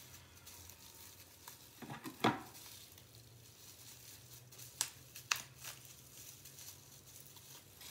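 Clear plastic wrapping crinkling and crackling in the hands as it is pulled off a small part, in scattered short crackles, the loudest about two seconds in, with a couple of sharp ticks a little after halfway.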